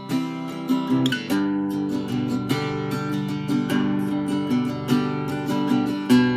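Acoustic guitar strummed in a quick steady rhythm, chords changing every second or so.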